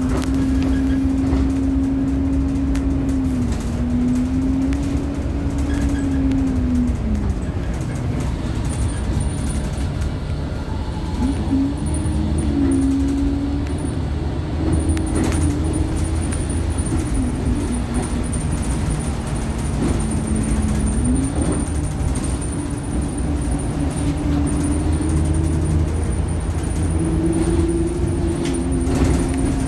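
Bus engine and drivetrain heard from inside the saloon while driving, a steady rumble with a whine whose pitch rises and falls as the bus speeds up, slows and changes gear. A few brief clicks and rattles from the cabin.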